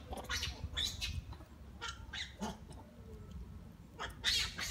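A string of short, high-pitched animal squeaks and chirps, with a louder burst of them near the end.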